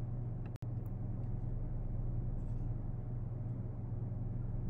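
Steady low hum of background noise with no speech or music. It cuts out for an instant about half a second in, then resumes unchanged.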